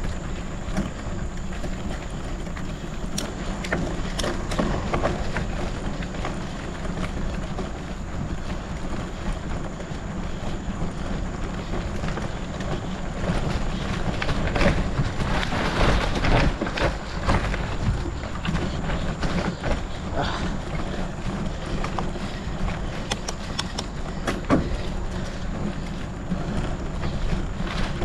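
Wind buffeting the microphone as a gravel bicycle is ridden over a rough off-road trail, with tyres crunching and the bike rattling and knocking over the bumps. The rattles come thickest about halfway through and again near the end.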